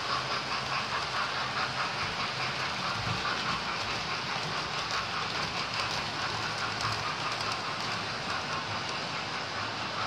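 Several electric model trains running round the layout at once: a steady whirr with rapid light clicking of wheels on the track.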